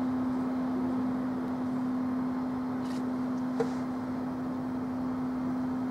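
Class 47 diesel locomotive standing with a steady hum held at one pitch, and a single short click about three and a half seconds in.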